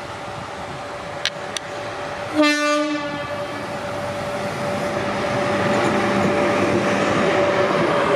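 Renfe FEVE Costa Verde Express train approaching on the metre-gauge line: one short horn blast about two and a half seconds in, then the rumble of the train growing steadily louder as it comes close.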